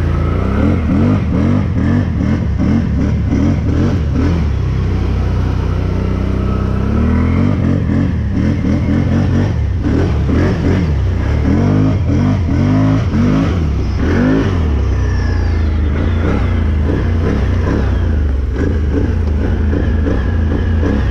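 Can-Am 1000's V-twin engine revving up and down over and over as the throttle is tapped, each blip rising and falling in pitch. This is the throttle technique used to keep the machine level while pushing through deep water.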